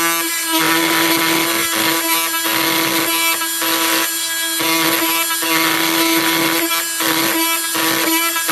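Flex FX4111 cordless multi-tool backing lag screws out of wood: a steady motor whine runs throughout, with a harsher noise coming and going about every second.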